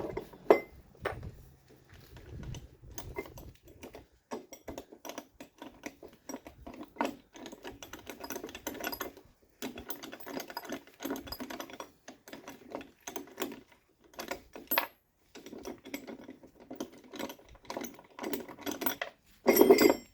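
Hand ratchet clicking in quick runs with short pauses while a strut spring compressor is wound off, with a louder metallic clatter near the end.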